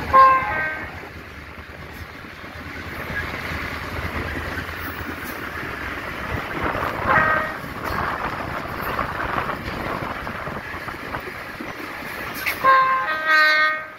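EMD GL18B diesel locomotive running along the line, with a chord horn sounding a short blast at the start, a fainter short toot about seven seconds in, and two blasts near the end, the second longer.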